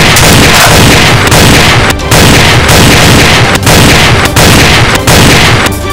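Loud, continuous battle-style gunfire and explosion sound effects, broken by short dropouts about every second from about two seconds in.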